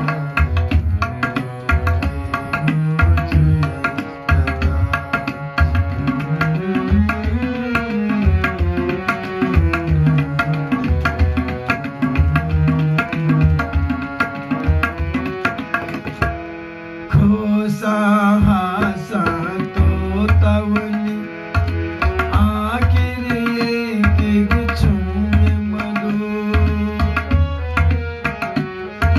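Tabla and harmonium playing together: the tabla drums a steady rhythm with deep, booming bass-drum strokes under the harmonium's sustained reedy chords, with a brief break a little past halfway.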